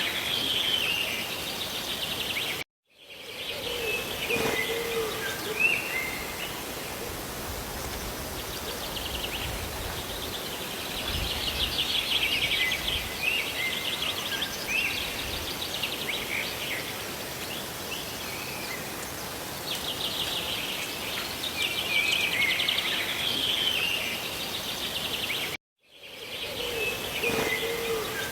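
Steady rush of falling water and rain with birds chirping and trilling over it. The sound drops out to silence briefly twice, about three seconds in and near the end.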